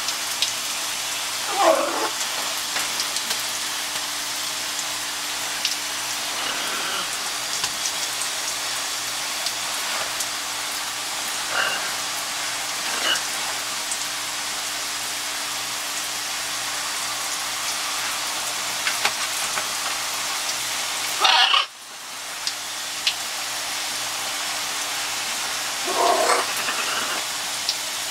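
Shower spray hissing steadily on wet macaws and the stall, with a few short macaw squawks scattered through. The loudest squawk comes about two-thirds of the way in, and the spray noise briefly drops away right after it.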